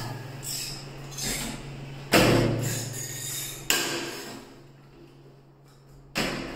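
Hand pop-rivet gun worked against an aluminium window frame: a series of sharp clacks, each dying away over about a second, the loudest about two seconds in, just before four seconds and just after six.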